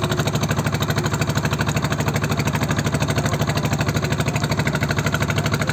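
A small engine running steadily with a fast, even pulse, neither revving nor changing speed.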